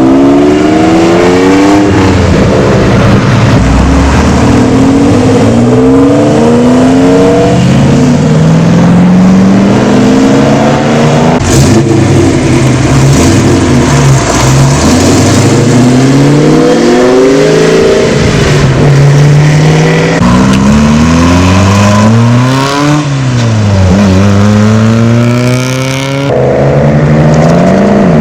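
Car engines revving hard and accelerating, pitch climbing, dropping back and climbing again many times over, loud throughout.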